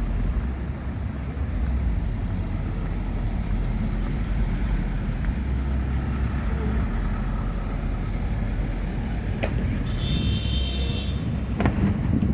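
Road traffic with vehicle engines running as a steady low rumble, and a few short hisses about halfway through.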